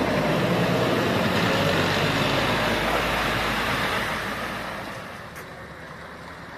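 Scania fire engine's diesel engine running as the truck drives past close by and pulls away, the sound fading after about four seconds.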